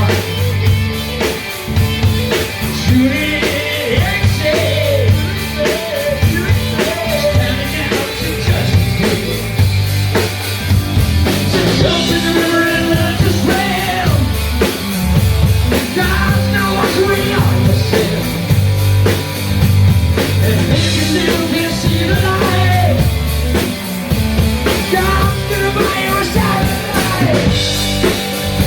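Live rock band playing at a sound check: drum kit keeping a steady beat, with singing over it.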